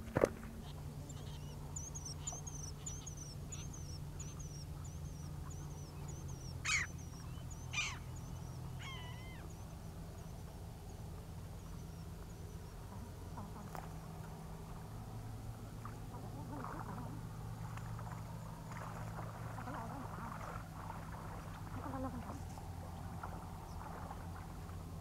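Birds calling: a run of quick high chirping notes over the first few seconds, then two loud harsh calls about a second apart and a third, lower call just after. A sharp knock sounds right at the start, and a steady low hum runs underneath.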